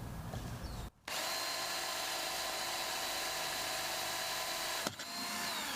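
Power drill with a hole saw running at a steady whine, boring a starter hole through the boat's fiberglass gel coat; it starts about a second in, runs for about four seconds, then stops and winds down with a falling whine.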